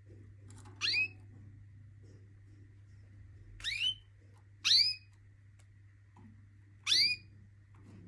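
Pet canaries calling: four short, rising chirps, about a second in, twice close together near the middle, and once more near the end, over a low steady hum.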